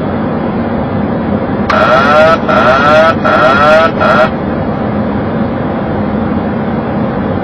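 Boeing 737 autopilot-disconnect warning in the cockpit: a loud warbling wail that sweeps in pitch, sounding in four quick pulses for about two and a half seconds. Underneath is a steady hum of airflow and engines on the approach.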